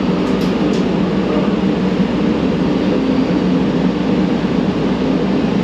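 Siemens P2000 light rail car heard from inside, running with a steady electric-motor hum over wheel and running noise.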